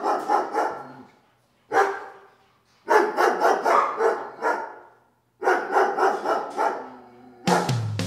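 Dog barking in quick runs of rapid barks separated by short silences. Drum-heavy music comes in near the end.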